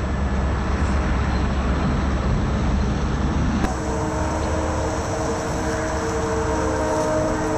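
Outdoor rumble of distant traffic, heavy in the low end. After a cut about three and a half seconds in, a steady drone holding several pitches runs over it.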